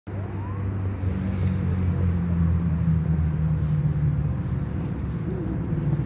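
A motor vehicle engine running nearby: a steady low rumble with a few held low tones whose pitch shifts a couple of times.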